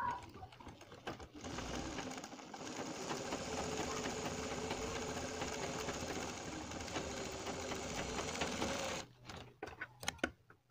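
Black domestic sewing machine stitching a steady run along a fabric-covered buckram strip, sewing in piping. It starts about a second and a half in and stops abruptly around nine seconds in, followed by a few light clicks.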